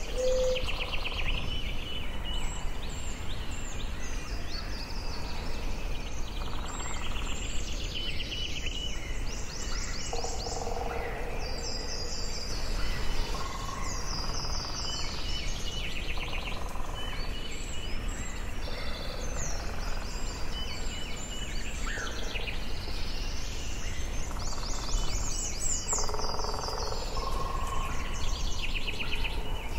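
Several birds singing and calling in a forest, with many quick chirps and rapid trills, some lower calls among them, over a steady low background noise.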